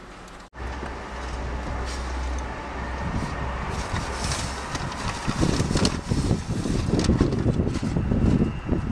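Street traffic noise with wind buffeting the microphone. It starts abruptly about half a second in and grows rougher and louder in the second half.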